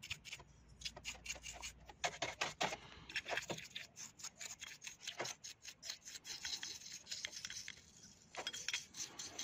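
Small brush scrubbing a GM12F carburettor body in petrol: quick, irregular strokes of bristles on metal, while the part is washed clean.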